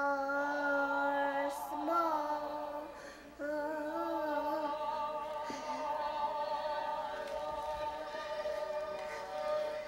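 A girl's singing voice: several held notes with vibrato, then one long held note from about five seconds in.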